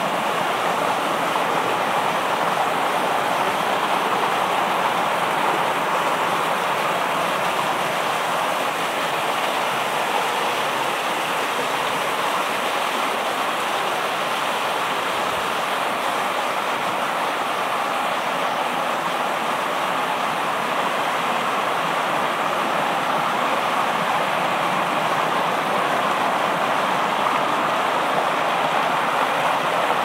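Shallow rocky stream rushing over stones and small cascades: a steady, even rush of water.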